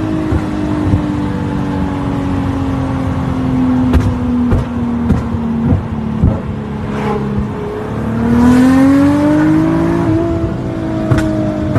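Nissan GT-R engine and exhaust with sharp pops and cracks. The engine note slowly falls, rises once about eight seconds in, then eases down again. Several pops come in a cluster in the middle and two more near the end.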